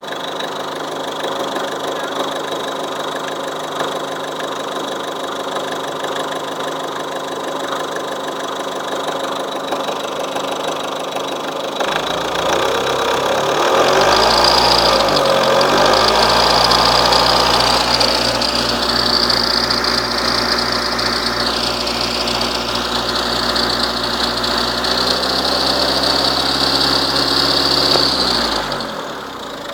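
Mazda 6 engine running with a strange noise. About twelve seconds in the sound grows louder and deeper, with a high steady whine on top, and it drops back again near the end.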